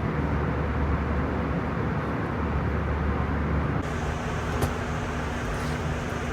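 Steady airliner cabin noise of an Airbus A320 in cruise: an even roar of engines and airflow. About four seconds in, the sound changes abruptly to a slightly quieter roar with a steady hum and a couple of faint clicks.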